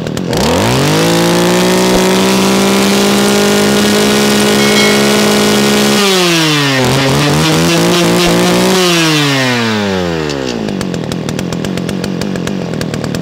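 ECHO YE46 brush cutter's two-stroke engine (42 mm piston) revving from idle to full throttle, holding a steady high pitch at about 12,300 rpm on the tachometer. About halfway through the throttle drops, picks up briefly once more, then the engine winds down to idle.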